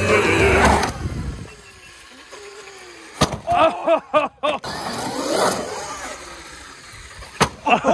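Traxxas X-Maxx RC monster truck's brushless electric motor whining at full throttle, the whine falling away, then a loud crash as the truck hits and lands about three seconds in, with another hard knock near the end.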